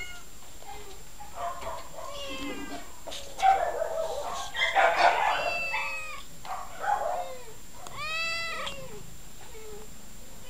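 Caged cats meowing over and over, several calls overlapping around the middle, with one long meow that rises and falls near the end.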